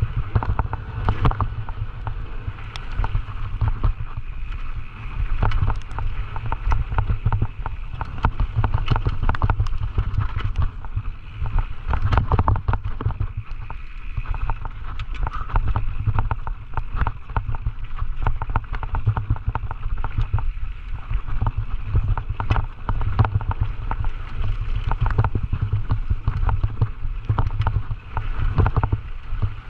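Scott Gambler 920 downhill mountain bike ridden fast down a rough trail, heard from an on-board camera. A steady low rumble of wind on the microphone runs under a constant, irregular rattle and knocking of the bike's chain, frame and suspension over the bumps.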